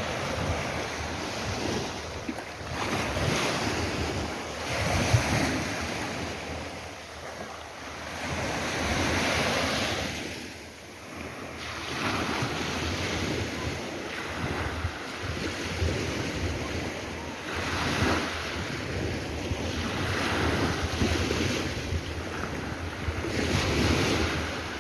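Sea waves breaking and washing on the shore, the surf swelling and falling back every few seconds, with wind buffeting the microphone.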